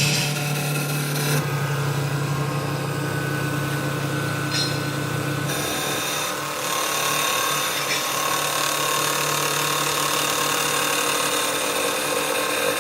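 CNC wood turning lathe running, a steady machine hum with several steady tones and high hiss. The hiss stops about a second and a half in and comes back about five and a half seconds in.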